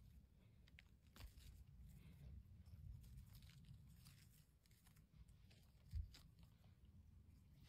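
Faint crackling and rustling of chanterelle mushrooms being plucked by hand from moss and needle litter, with one short low thump about six seconds in.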